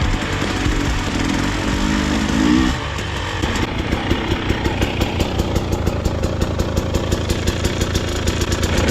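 Background music ends about three seconds in. It gives way to an off-road vehicle's engine idling with an even putter of about five pulses a second.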